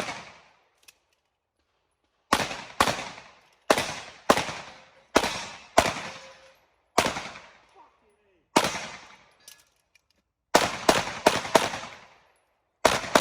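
Pistol shots fired during a practical-shooting stage: mostly double taps about half a second apart, with pauses of a second or two between them as the shooter moves between targets, then a fast string of four shots near the end.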